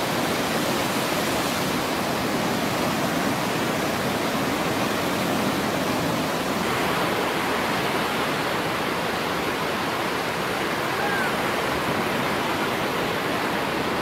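Heavy surf breaking on a sandy beach: a steady, loud wash of waves with no let-up, from storm-raised seas.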